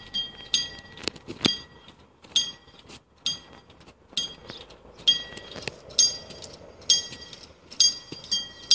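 Railway level-crossing warning bell ringing: evenly spaced metallic dings about once a second, each ringing on briefly, signalling that a train is approaching.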